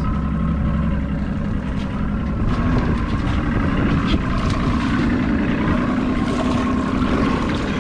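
A motorboat's engine running steadily, a constant hum with no change in speed.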